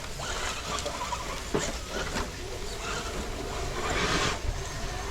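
Radio-controlled rock crawler truck scrabbling over rocks, a scraping, clattering noise with a sharp knock about a second and a half in and a louder scrape near the end.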